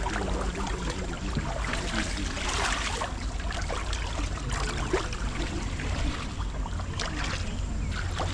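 Hot spring water running and splashing, with many small splashes over a steady low rumble.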